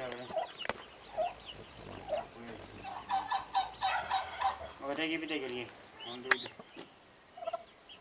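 Domestic turkey hen and her young poults calling: short high peeps scattered throughout, a quick run of calls about three to four seconds in, and two lower calls around five and six seconds in. A single sharp click comes just after the second lower call.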